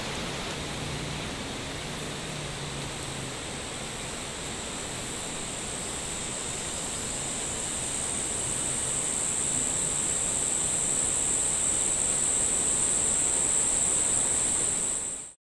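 Steady hiss of noise with a thin, high whine that swells louder over the last several seconds, then everything cuts off abruptly near the end.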